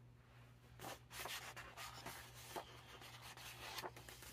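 Faint rustling and rubbing of a picture book's paper pages being handled and turned by hand, starting about a second in.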